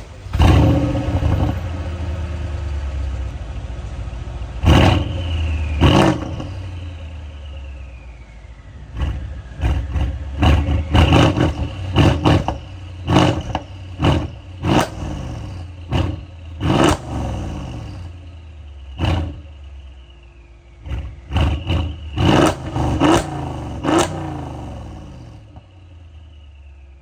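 Mercedes-AMG GLE 63 S twin-turbo V8 revved hard through an aftermarket exhaust, which the owner says has made a formerly quiet car loud: a big flare about the start, then a run of short, sharp rev blips in quick clusters, each rising and dropping back, before it settles to idle near the end.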